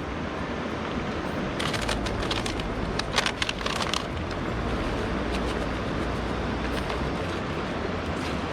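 A utensil clicking and scraping against a cooking pot for about two seconds, over a steady rushing background noise with a low rumble.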